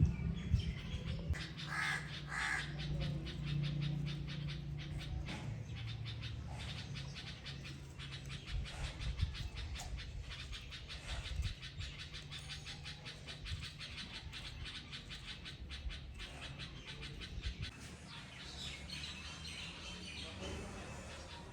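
Birds calling, with two harsh calls about two seconds in, over a steady low hum and a dense fine ticking that runs throughout.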